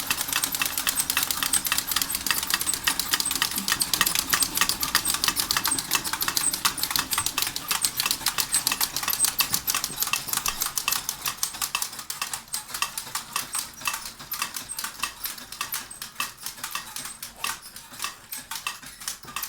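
Model steam engine and its driven mechanism clattering with rapid metallic clicks, which thin out, slow and fade over the last few seconds as the machine runs down.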